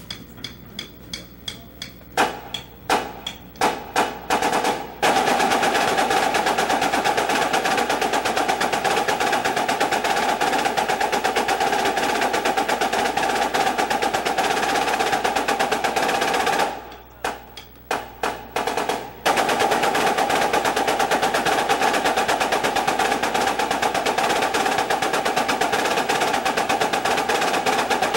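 A drumline's snare line playing a triplet-diddle exercise in unison on Dynasty marching snare drums. A few separate strokes open it, then a fast continuous run of diddled triplets follows, broken a little past halfway by a short passage of separate accented strokes before the run resumes.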